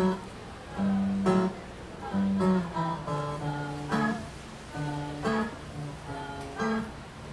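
Acoustic guitar strumming slow chords, the instrumental intro of a slow ballad.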